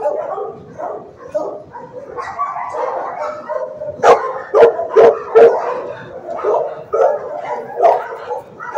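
Dogs barking continuously in a shelter kennel, with a run of loud, sharp barks about four seconds in and another near the end.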